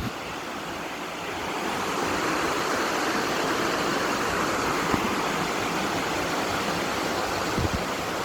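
Waterfall rushing steadily, an even roar of falling water, with a few soft low thumps.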